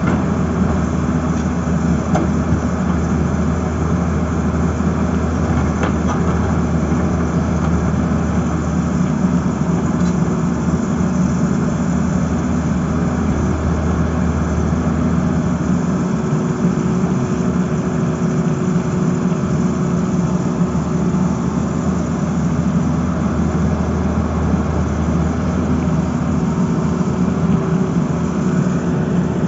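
Tata Hitachi crawler excavator's diesel engine running steadily under working load, a loud, even low drone, while the boom and bucket work.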